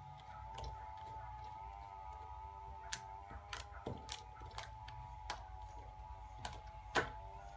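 Purple borax slime being kneaded and pressed against a tabletop by hand, giving a scattered run of sharp clicks and small pops, the loudest about seven seconds in.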